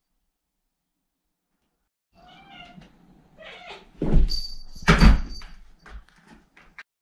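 Kitten meowing briefly, starting about two seconds in, then two heavy thuds about a second apart as a Bengal kitten lands from jumps on the carpeted floor, followed by smaller knocks and scuffles.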